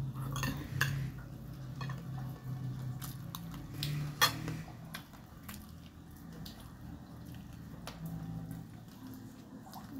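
Metal fork clinking and scraping against a glass plate during a meal: a scattering of sharp clicks, the loudest about four seconds in, over a low steady hum.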